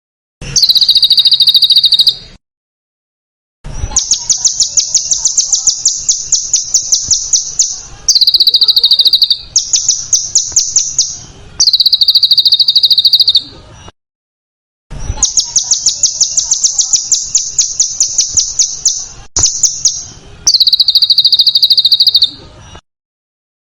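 Songbird's harsh, rapid-fire calls: strings of sharp, high notes repeated in quick succession, in bouts of one to four seconds that switch between a lower and a higher pitch, cut off by abrupt silent gaps. This is a 'masteran' training recording with dense, rough 'tembakan' (shot-like) phrases for competition birds to copy.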